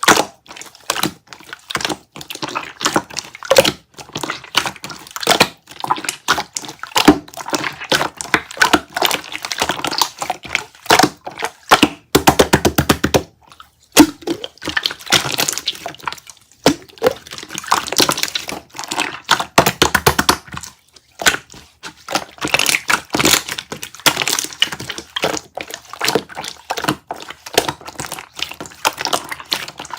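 A dense, irregular run of clicks, taps and crackles, with a fast, even rattle of clicks about twelve seconds in.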